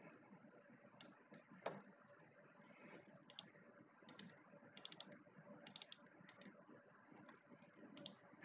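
Faint computer clicks, scattered singly and in quick pairs and triples, over low room noise.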